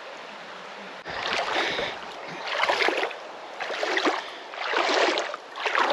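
Water splashing in a river in a regular rhythm, about one splash a second, starting about a second in, over the steady rush of the river.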